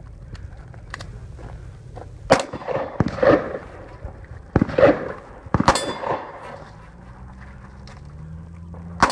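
A string of handgun shots, irregularly spaced, starting about two seconds in, each followed by a rolling echo. A pair comes close together near six seconds, then a pause before one last shot near the end.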